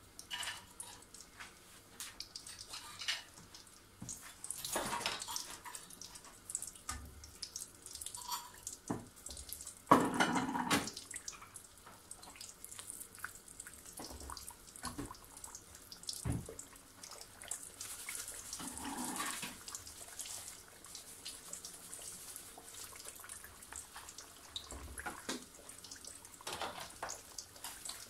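Pastries deep-frying in hot oil in a pan: steady sizzling with many small crackles and pops. A louder burst comes about ten seconds in, as a spatula turns the pastries over in the oil.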